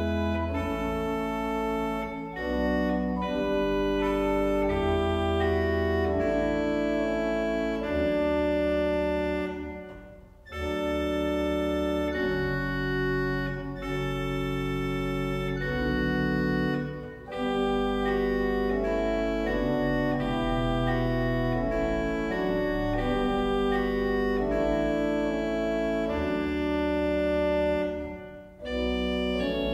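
Pipe organ playing a slow solo line on a Krummhorn 8' reed over a soft Spitzgambe 8' and Subbass 16' accompaniment, in phrases with short breaks. The reed is first covered by a Rohrflöte 4' an octave higher, which brightens the tone and makes slight mistuning of the reed less noticeable. It is later covered by a Prinzipal 2' instead, a gap registration.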